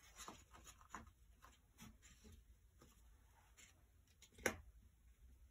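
Faint rustling and light taps of paper card being handled on a tabletop, with one sharper tap about four and a half seconds in.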